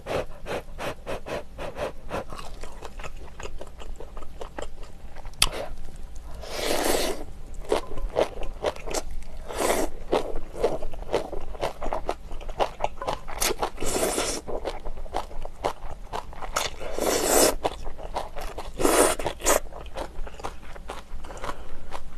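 A person slurping and chewing rice noodles from beef brisket noodle soup: a steady run of quick wet chewing clicks, broken by about five longer, louder slurps spread through.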